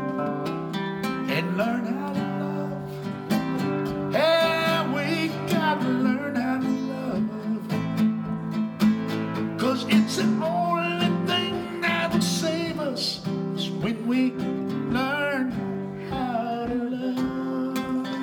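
A man singing to his own strummed nylon-string classical guitar.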